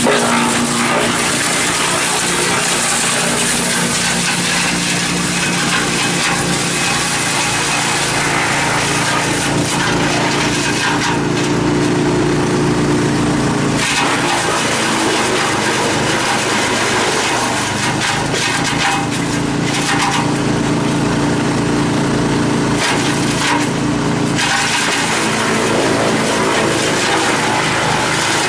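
Bandit 65XP self-feed wood chipper running under load with its twin-cylinder 35 hp Vanguard gas engine, chipping brush: a steady engine hum under a dense crackle of wood being chipped. The crackle eases for a stretch in the middle and builds again near the end.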